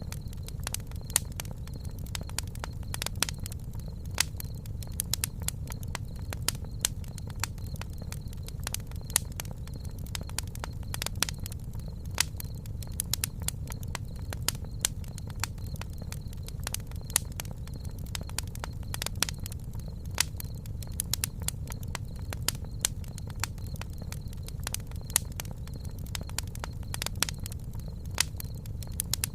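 Campfire burning, wood crackling and popping in irregular sharp snaps over a steady low rumble of the flames.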